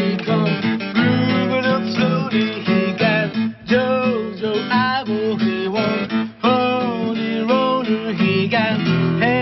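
A band playing a song live, with acoustic guitar strummed under a gliding melody line.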